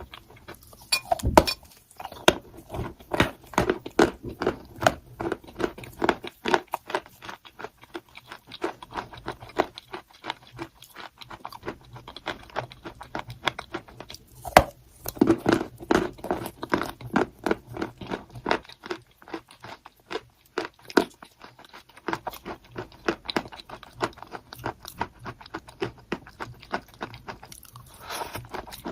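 A person biting and chewing crunchy chalk: a continuous run of dry, sharp crunches, with a couple of short pauses.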